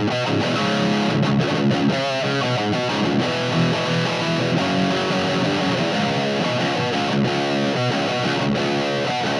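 Distorted electric guitar playing a riff through an amplifier and speaker cabinet.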